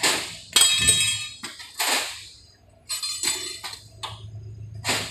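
Steel bars clanking against metal: a string of about eight sharp, ringing metallic clinks at uneven intervals. Under them runs a steady low hum from the bending machine.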